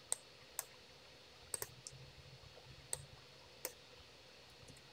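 Computer mouse clicking about six times at uneven intervals, short sharp clicks over faint room tone.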